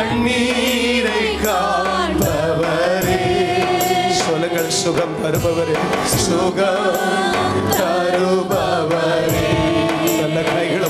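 Congregation singing a worship song over instrumental accompaniment with a steady percussion beat.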